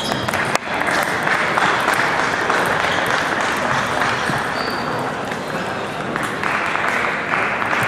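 Applause and crowd noise in a large sports hall, with scattered clicks of table tennis balls from play at other tables.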